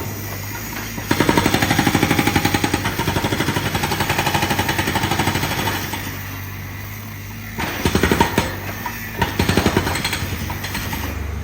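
A jackhammer hammering in rapid strokes: one long burst starting about a second in and lasting around five seconds, then shorter bursts near the end, over a steady low hum.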